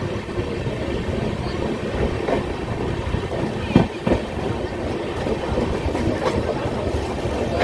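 Wheels of the Udhampur Express passenger coaches running on the rails: a steady rumble, with two quick clacks about four seconds in as the wheels cross a rail joint.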